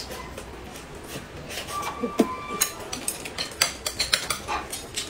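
Chopsticks clinking and scraping against porcelain plates during a meal, with many sharp clicks; the loudest clink comes about two seconds in.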